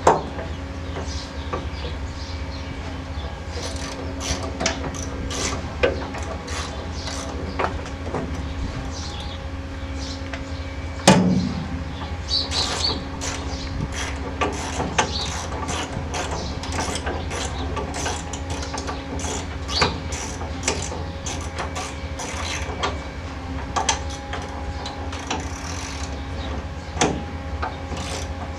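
Hand tools clicking and knocking against metal car parts in irregular strokes during suspension work, with one louder clank about 11 seconds in, over a steady low hum.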